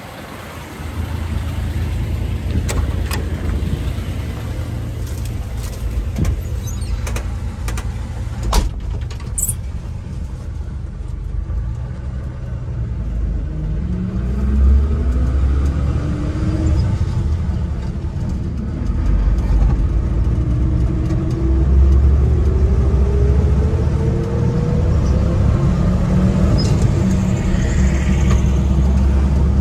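1979 Chevrolet C10's original 250 cubic-inch inline-six running under way with a steady low rumble, its note climbing slowly and steadily through the second half as the truck accelerates. A few sharp clicks and knocks sound about a quarter of the way in.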